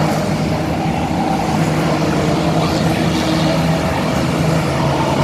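Engines of a pack of small oval-racing cars running together as they pass on the track, a steady, loud drone.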